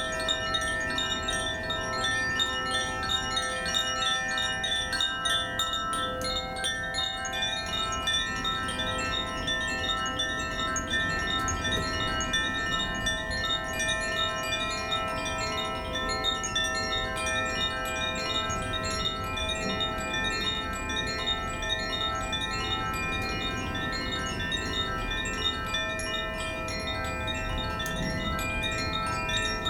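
Koshi chimes gently swung and played continuously: a dense, unbroken tinkling of small strikes over overlapping, sustained ringing tones.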